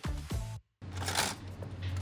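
Background music that cuts off about half a second in. After a brief silence, a printer starts up with a steady low hum and a scratchy rustle of paper feeding through it.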